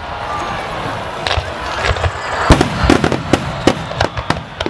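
Fireworks display: a rapid string of sharp bangs and crackles from bursting shells, thickest from about a second in, with the loudest bang about halfway through.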